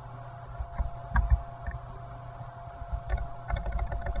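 Computer keyboard keystrokes as text is deleted and retyped: a few scattered taps, then quicker typing near the end, over a faint steady hum.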